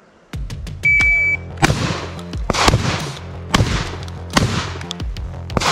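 A shot timer's single beep, then four shots from an IWI Tavor TS-12 12-gauge semi-auto bullpup shotgun, about a second apart. Another sharp bang comes near the end.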